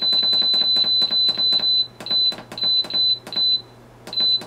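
Cosori electric pressure cooker's control panel beeping as its buttons are pressed to set the sauté time. There is a fast run of short high beeps, about six a second, for nearly two seconds, then single beeps about every half second, each with a faint click of the button.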